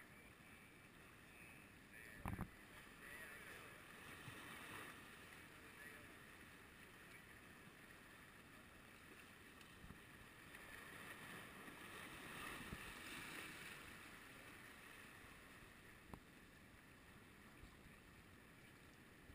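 Near silence: a faint steady hiss of the night air, broken by one sharp knock about two seconds in and a faint click later on.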